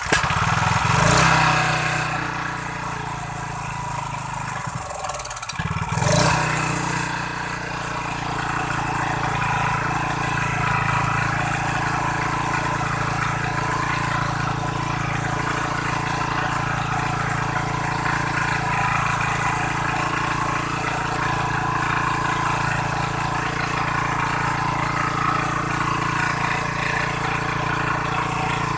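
Small portable generator's single-cylinder OHV petrol engine starting and running. About five seconds in it dips and surges once, then settles into a steady run.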